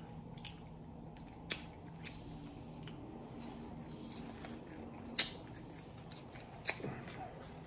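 Close-mic chewing of a fried green bean: quiet mouth sounds broken by a few sharp crunchy clicks, the loudest about five seconds in.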